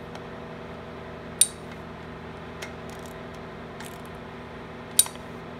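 Metal tool clinking as the new ignition coil's mounting bolts on a Predator small engine are tightened: two sharp clinks, about a second and a half in and near the end, with a few faint ticks between.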